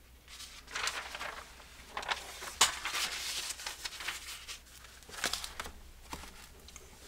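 Paper rustling as the pages of a legal pad are turned over to a fresh sheet, in several irregular bursts with a few sharp taps, the loudest about two and a half seconds in.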